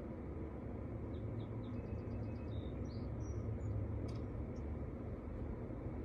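Low, steady wind rumble on the microphone, with a few faint, high bird chirps in quick runs about one to four seconds in.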